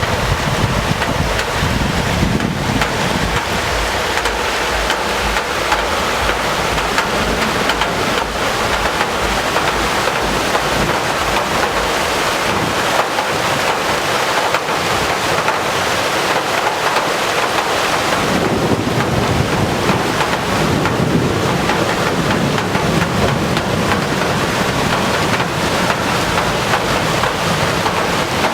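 Heavy rain pouring steadily in a thunderstorm, with wind buffeting the microphone; the low wind rumble eases for several seconds midway, then returns.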